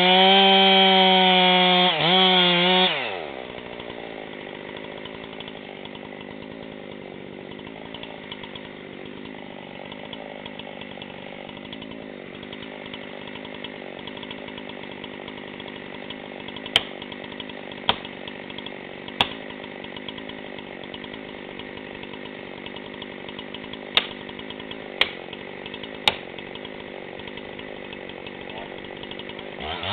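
Gas chainsaw at full throttle cutting into a large tan oak trunk, dropping to idle about three seconds in and then idling steadily with its bar left in the cut. Later come six sharp knocks in two groups of three, about a second apart.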